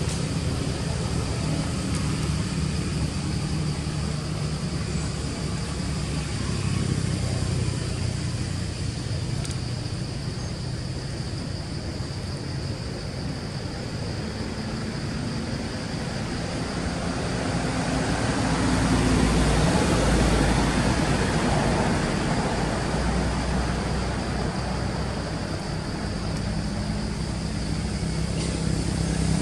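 Motor vehicle engine running steadily, growing louder about two-thirds of the way in as it comes closer, then easing off.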